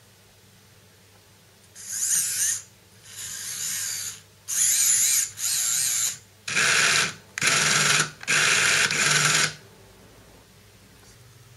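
Small electric gear motors driving the omni wheels of a homemade robot base, whining in about eight short bursts of half a second to a second each as it is driven from a gamepad. The pitch wavers within each burst.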